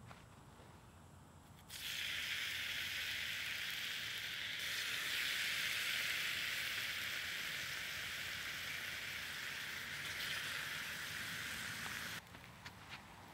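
Bacon sizzling in a hand-forged egg spoon. The hiss starts suddenly about two seconds in, grows louder a few seconds later and cuts off abruptly near the end.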